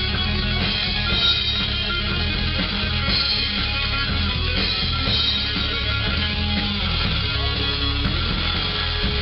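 Rock music led by guitar, playing steadily throughout.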